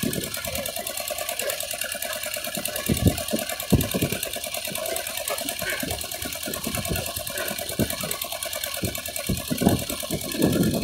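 An engine running steadily with a fast, even clatter, with a few dull knocks as fish are laid down on the wooden deck.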